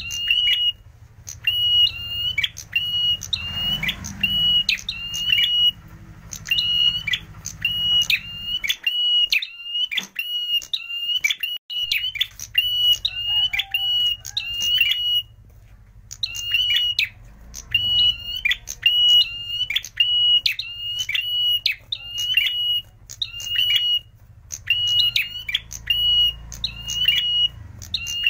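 Caged prenjak merah, a rufous-headed grey tailorbird, calling loud, sharp repeated notes at one steady high pitch, about two a second, in long runs broken by short pauses.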